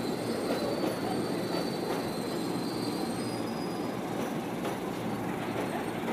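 Electric commuter train running through a station: a steady rumble of wheels on rails, with a thin high squeal over it that fades out a little past halfway.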